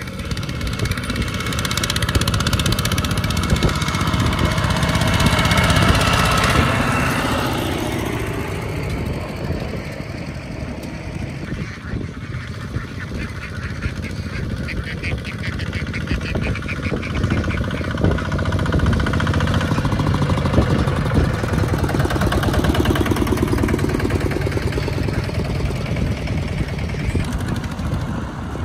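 A two-wheel walking tractor's single-cylinder diesel engine running with a fast steady chugging, while a flock of ducks quacks over it.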